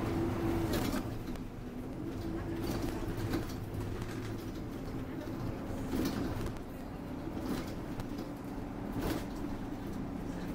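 Alexander Dennis Enviro200 MMC single-deck bus on the move, heard from inside at the front: a steady engine and drivetrain hum, with several short rattles and knocks from the body and fittings.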